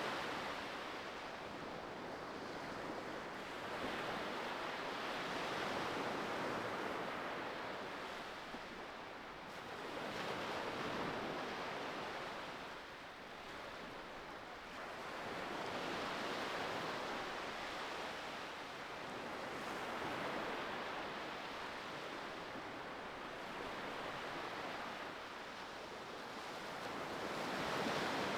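Ocean surf: a steady rush of waves that swells and eases every five or six seconds.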